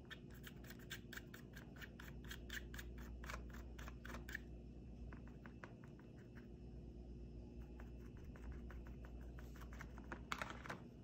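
Paintbrush dabbing and stroking paint onto a plastic water bottle's cap, a quick run of faint scratchy ticks that thins out about halfway through, with a couple of louder scratches near the end.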